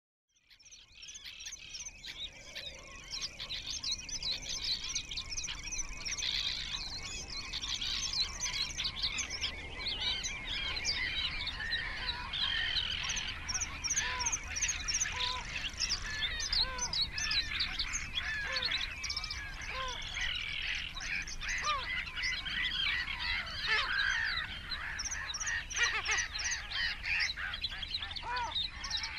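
Dense chorus of many birds chirping, trilling and calling together, with scattered lower short calls mixed in, fading in over the first few seconds.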